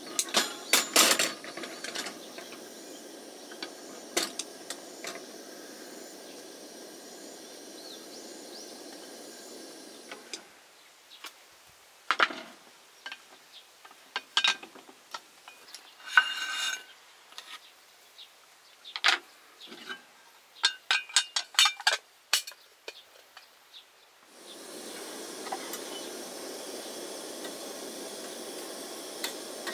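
Clinks, scrapes and knocks of camp cookware and utensils being handled, over a steady hiss that drops away about ten seconds in and returns near the end.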